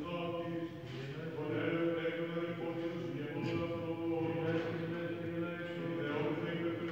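Male monastic voices singing Byzantine Orthodox chant: a melody moves over a long-held drone note without a break.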